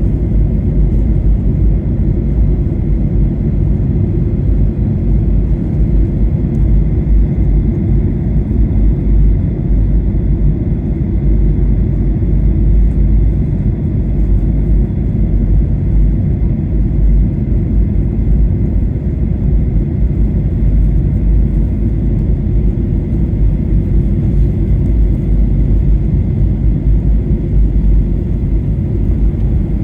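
Steady low rumble of engine and airflow noise inside the cabin of a Boeing 737-800 airliner on descent, with a faint high steady whine above it.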